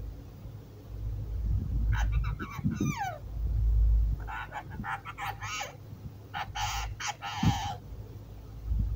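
Alexandrine parakeet giving harsh, raspy calls in short bouts: a few around two to three seconds in, one sliding down in pitch, then longer ones from about five to seven and a half seconds in. A low rumble sits underneath, loudest around four seconds in.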